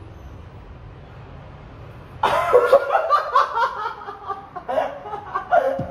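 Low steady room hum, then about two seconds in a man bursts out into loud laughter that goes on in short bursts.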